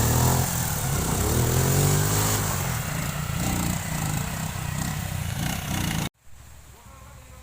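Motorcycle engine revving up and down as it works over rough ground. About six seconds in it cuts off suddenly to a much quieter background.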